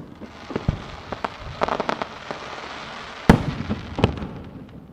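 Aerial firework shells bursting: a crackling, hissing spray of small pops, with a sharp bang about three seconds in and another about a second later.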